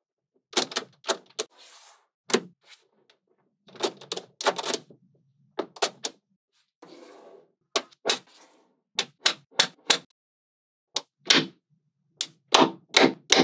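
Small steel magnetic balls clicking sharply as blocks of them are snapped together by hand: irregular clicks, often several in quick succession, with short bursts of rattling as loose balls roll and settle.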